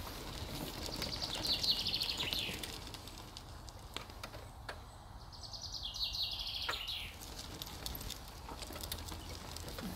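A songbird singing two short phrases of rapid trilled notes, each dropping in pitch toward its end, about a second in and again around the middle, over a steady low rumble.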